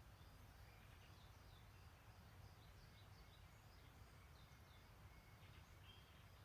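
Faint songbirds chirping in the background, a run of short high falling chirps, over a steady low rumble.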